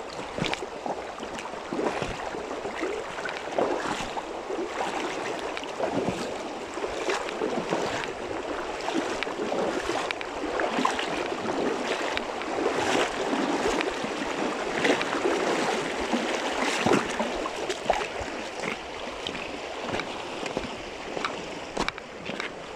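A steady rush of running water and wind by a river, with many small irregular clicks and rustles through it.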